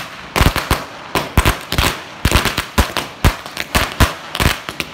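Diwali firecrackers bursting in a rapid, irregular string of sharp bangs, about four or five a second.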